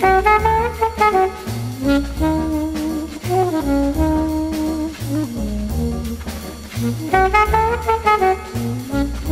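Background jazz music, a horn melody played over a bass line.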